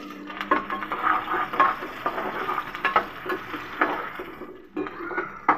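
Chopped onions frying in hot oil in a steel pot, sizzling, while a slotted spoon stirs them and scrapes and knocks against the pot several times.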